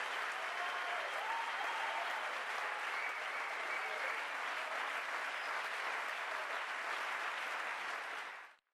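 Audience applauding steadily, with a few voices calling out over the clapping; the applause fades out near the end.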